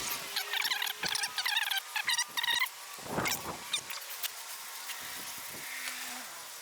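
Quick, high-pitched chirping calls, repeated several times over a faint steady hiss, like small birds or insects outdoors.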